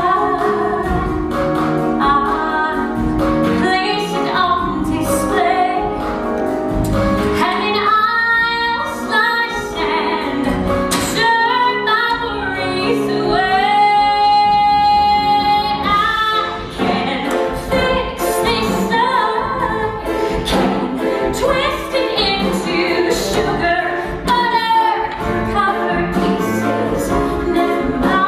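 A woman singing a musical-theatre song solo, with band accompaniment, holding one long note about halfway through.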